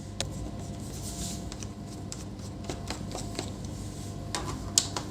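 Scattered light clicks and handling noises from work on a laptop's plastic case as it is being opened, over a low steady hum.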